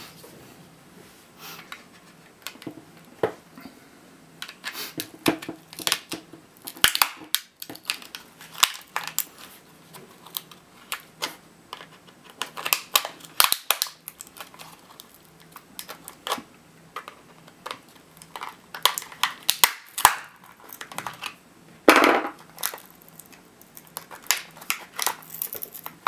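Plastic case of a Lenovo 45N1025 laptop battery pack being pried open with a flathead screwdriver: irregular clicks, creaks and sharp snaps as the case clips and seams give, one louder crack well into it.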